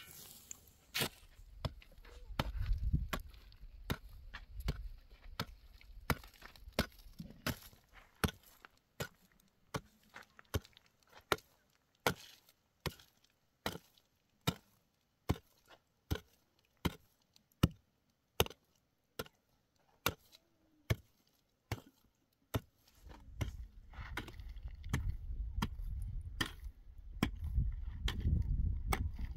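A steady series of sharp chopping blows from a hand tool, a little faster than one a second. A low rumble is heard near the start and again through the last few seconds.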